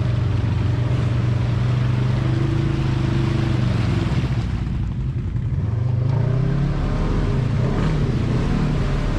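Polaris side-by-side UTV engine running under load as it drives through a flooded mud track, with water splashing around the wheels. The engine note dips about four to five seconds in, then rises again as the throttle opens.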